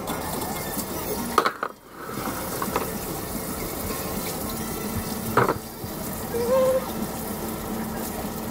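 Top-load washing machine filling with water: a steady rush of running water into the tub. There is a brief dropout just under two seconds in, and a short knock about five and a half seconds in.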